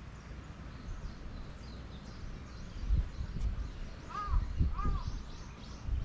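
Outdoor ambience: small birds chirp faintly and high throughout, and two short rise-and-fall calls come about four seconds in. Low rumbles and thumps of wind or handling on the microphone are the loudest part.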